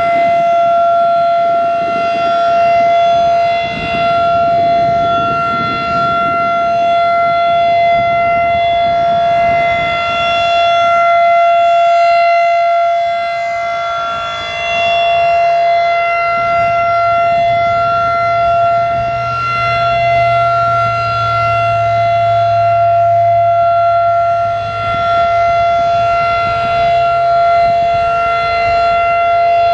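Federal Signal 2001-DC outdoor warning siren sounding the steady Alert signal: one loud, level tone that holds its pitch throughout. As the siren's horn rotates, the loudness swells and fades, dipping about every ten seconds.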